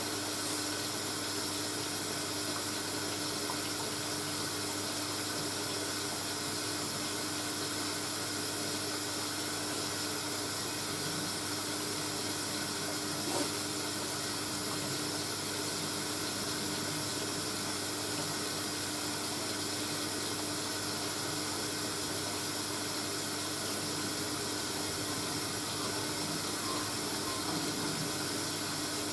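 Hoover A3060 Electronic 1100 washing machine moving water between rinse and spin: a steady rush of water with a constant mains hum from the valve or pump, ending abruptly right at the end.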